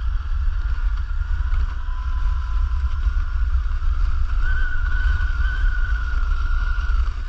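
Hobbywing 70125 brushless motor of a 1/5-scale RC car whining steadily while towing a sled. The whine climbs a little in pitch and grows stronger about four and a half seconds in. A heavy low rumble runs underneath.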